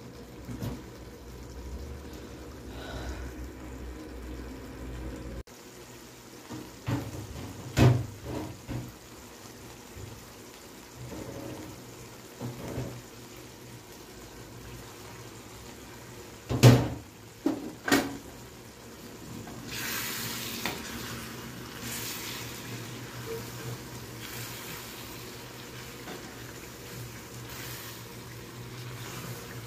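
A curry simmering in a pan on a gas burner, a steady bubbling. A cooking utensil knocks against the pan a few times, loudest in a quick cluster of three past the middle. A brighter sizzle follows in the last third.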